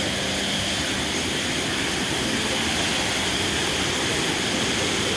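Steady rush of a waterfall cascading over rocks into a shallow stream.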